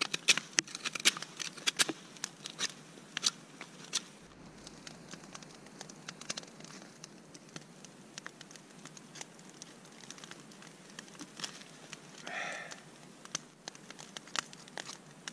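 Knife blade shaving and carving a small piece of frozen Siberian cedar: a run of short, sharp scraping clicks, denser and louder in the first few seconds, then lighter, sparser cuts. The wood is frozen and brittle.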